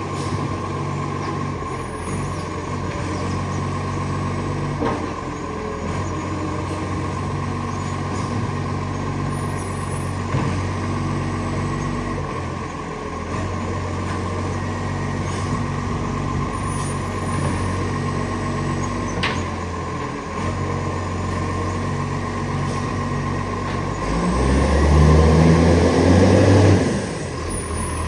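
Garbage truck's diesel engine running with an exhaust leak, its note stepping up and down steadily. About 24 seconds in it revs louder with a rising pitch for a few seconds, then drops back.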